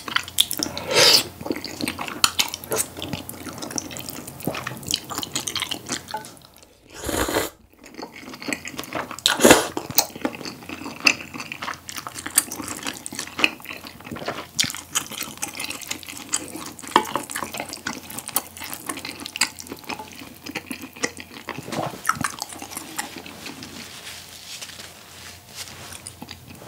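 Close-miked wet eating sounds of spicy tteokbokki noodles and beef brisket: noodles slurped and chewed with sticky, squelching mouth noises and many small clicks, with a brief pause about seven seconds in.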